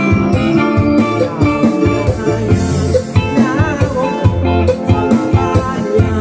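Live band music: a man singing into a microphone over electric guitar, electronic keyboard and a steady drum beat, with a wavering held note about halfway through.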